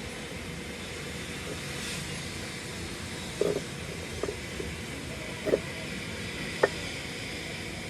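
Steady hissing background noise with a faint high whine, broken by about four short knocks spread through the second half.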